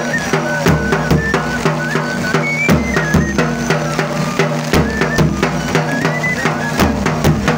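Himachali nati folk dance music: a high stepping melody over a steady drum beat.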